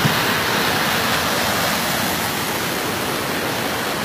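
Fast-flowing canal water rushing and churning in white foam: a steady, even rush.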